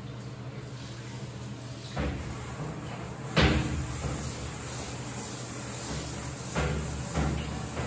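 Knocks and clanks from the hinged steel-framed gate of a self-serve dog wash tub being swung and shut, the loudest a sharp clank about three and a half seconds in. A steady low hum runs underneath.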